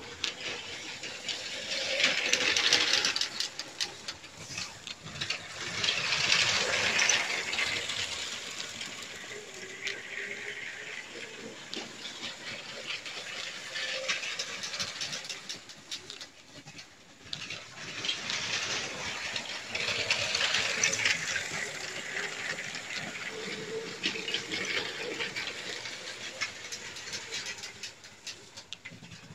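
Lego train running on plastic track: a rattling clatter of wheels and gears with a faint hum, swelling louder several times and fading between as the train passes near and away.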